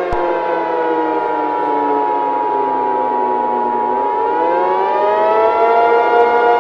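Civil defense siren winding down in pitch for about four seconds, then winding back up, with a steady tone held alongside it.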